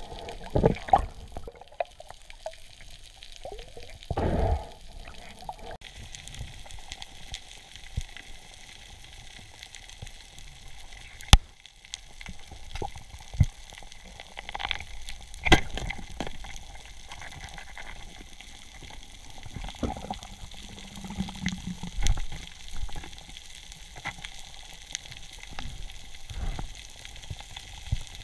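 Underwater sound picked up by a diver's camera: a steady crackling hiss full of small clicks, broken by a few sharp knocks and low thumps, the loudest knocks about 11 and 15 seconds in.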